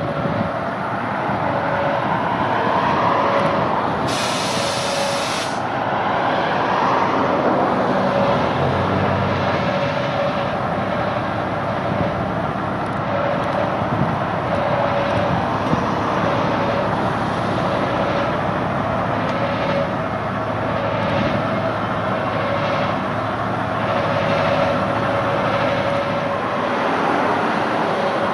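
Narrow-gauge diesel-hydraulic shunting locomotive running steadily as it moves slowly toward the crossing, with a brief hiss about four seconds in.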